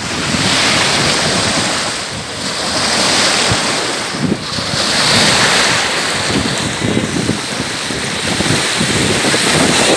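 Small sea waves breaking and washing in shallow surf, a steady rushing wash that swells and eases, with wind buffeting the microphone.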